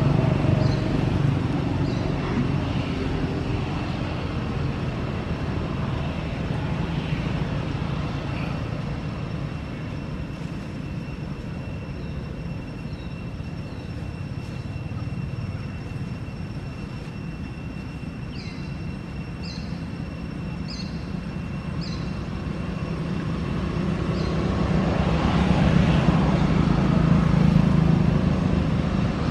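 Outdoor ambience of a steady low rumble of distant motor traffic, swelling near the end as something passes. A faint steady high insect drone sits over it, and a few short high chirps come about two-thirds of the way through.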